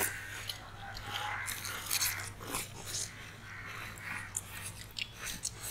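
People biting into frozen homemade ice lollies (kuchi ice), with irregular short, crisp crunching clicks.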